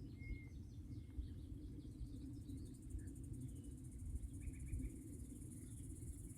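Faint outdoor ambience: a steady high insect trill over a low rumble, with a few faint, short bird chirps scattered through.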